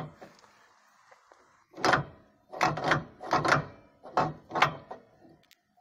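Close handling noise: a knock, then six short scraping rubs about half a second apart, as a hand works around a differential's exposed pinion shaft and seal.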